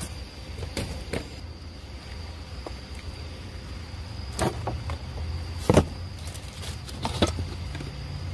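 Rummaging through dumpster trash: cardboard boxes and plastic bottles knock and rustle as a gloved hand moves them, with a sharp knock a little before six seconds in. Under it run a steady low hum and a thin, steady high whine.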